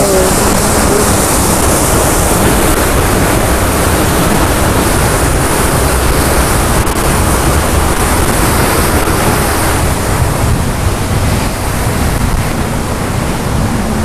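Waterfall and rocky mountain stream, water rushing steadily and loudly.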